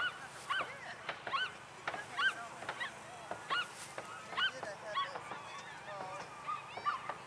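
A dog yelping in short, high-pitched yips, repeated irregularly about once or twice a second, with a few lower whines near the end.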